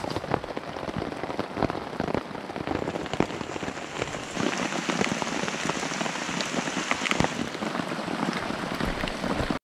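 Steady rain falling, a dense patter of many separate drops tapping on the poncho shelter overhead, slightly heavier from about four seconds in.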